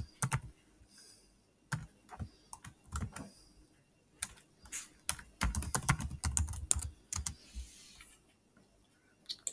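Typing on a computer keyboard: irregular key clicks, scattered at first and then in quicker runs.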